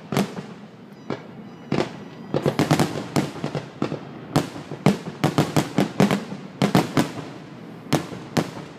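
Aerial fireworks grand finale: shells bursting overhead in a dense barrage, many sharp bangs, some in rapid clusters of several per second.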